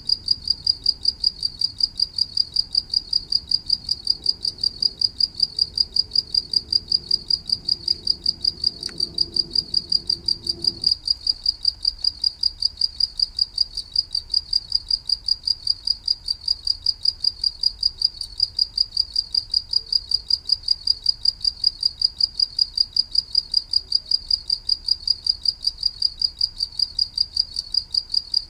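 A cricket chirping steadily in a high, even tone, about four chirps a second. A faint low background rumble cuts off abruptly about eleven seconds in.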